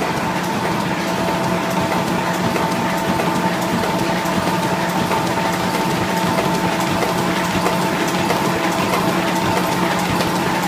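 Box folder-gluer machine running steadily: continuous mechanical clatter with a constant low hum and a steady higher whine.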